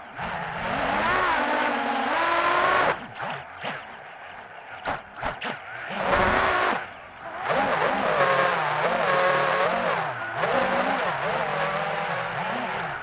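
FPV drone's motors and propellers whining, the pitch rising and falling with the throttle. About three seconds in the whine drops away for a few seconds, then comes back strongly.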